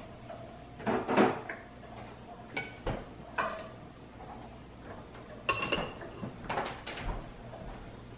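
Dishes and utensils clattering: metal serving tongs clinking against a ceramic bowl as food is served, with other kitchen clatter. The clinks come irregularly, the loudest about a second in, and a few ring briefly around five to seven seconds in.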